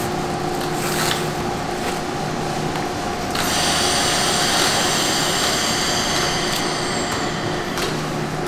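Steady hum of pork processing-plant machinery. About three seconds in, a high-pitched machine whine starts, runs for some four seconds, then stops.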